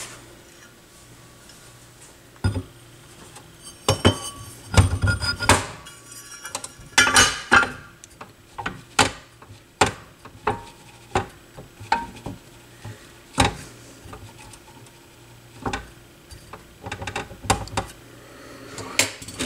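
Metal clinks and knocks as the AR XA turntable's metal platter is set onto its spindle and then pressed down by hand, again and again, to test the new suspension springs. The springs are very tight.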